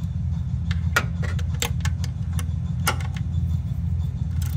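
Ratchet wrench clicking in irregular single clicks as it loosens the drain plug on an oil pan, over a steady low hum.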